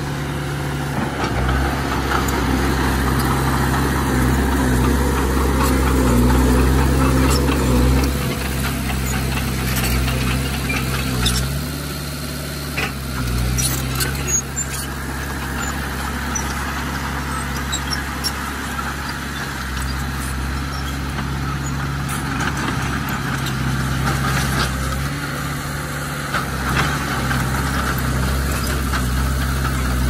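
Heavy diesel engine of a bulldozer running under changing load, working hardest through the first several seconds and then easing, with a few metal knocks and clanks near the middle.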